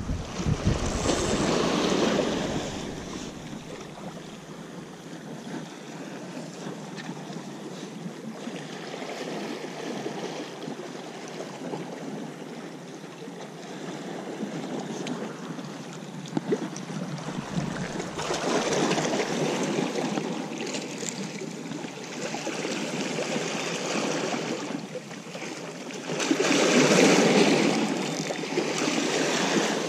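Sea surf washing against the shore, mixed with wind. It comes in rising and falling rushes, loudest about a second in, around twenty seconds in, and again near the end.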